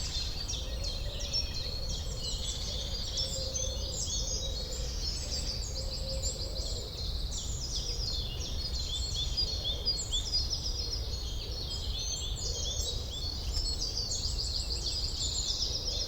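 Forest birdsong chorus: many small birds chirping and trilling over one another in a dense, unbroken stream of high, quick notes, over a low steady background hiss.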